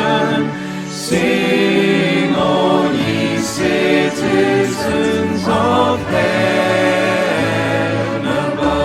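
A choir singing a Christmas carol, moving from one held note to the next every second or so.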